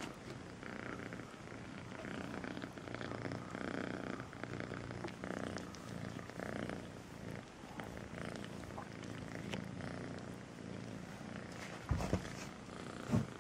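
Kitten purring steadily while being stroked, the purr swelling and easing with each breath. Two sharp thumps near the end.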